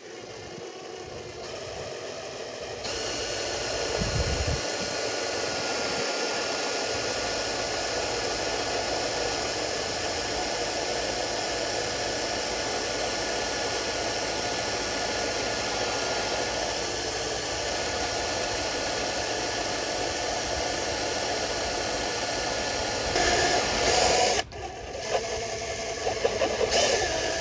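Electric drill with a step bit running steadily as it bores a 9/16-inch hole in a lawn tractor's gas tank. The drill stops briefly about three seconds before the end, then runs again.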